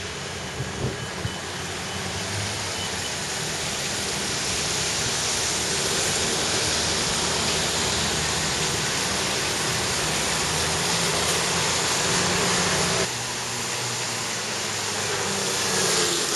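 Typhoon wind and heavy rain rushing steadily, swelling toward the middle and dropping suddenly about 13 seconds in.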